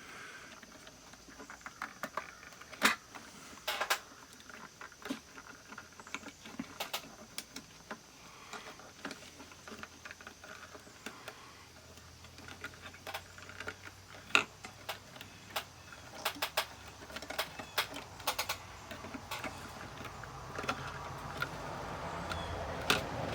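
Scattered small clicks, taps and rattles of hand work on a plastic analog multimeter as its case is unscrewed and opened to reach the selector switch.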